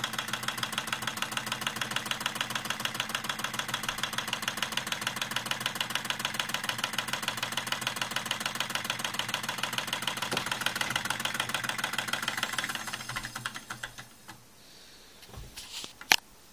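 Homemade Ross yoke alpha Stirling engine running, its mechanism making a rapid, even knocking. About thirteen seconds in the knocking slows and dies away as the engine runs down, and one sharp click follows near the end.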